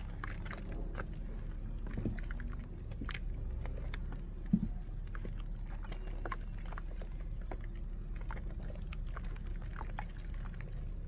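Dry multani mitti (Fuller's earth clay) crunching and crumbling: many small scattered crackles and snaps over a steady low hum, with one sharp knock about four and a half seconds in.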